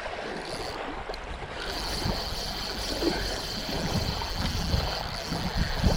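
Wind buffeting the microphone in uneven low gusts over a noisy outdoor background, with a thin steady high-pitched tone coming in about one and a half seconds in.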